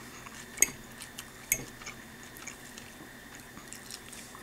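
Metal fork clinking against a plate as food is scooped up: two sharp clicks about a second apart in the first half, then a few faint ticks.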